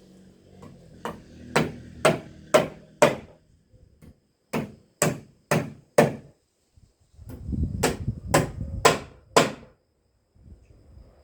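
Hammer blows on wood, about two a second, in three runs of four or five strikes with short pauses between them, as when nails are driven into boards.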